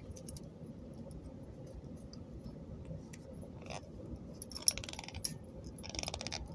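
Small hard pieces clicking and rattling together in the hands while bracelets are made. The clicks are scattered at first, then come in short rattles in the second half.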